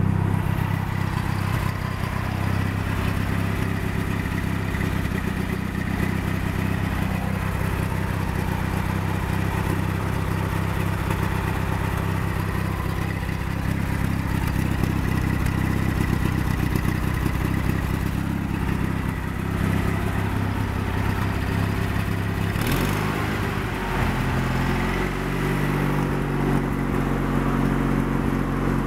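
Craftsman GT6000 garden tractor V-twin engines running steadily. About 23 seconds in there is a brief knock and the engine note bends, then settles into a different steady pitch.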